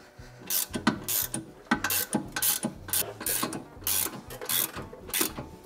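Hand ratchet clicking in quick back-and-forth strokes, about three clicks a second, undoing the bolts of a front brake caliper.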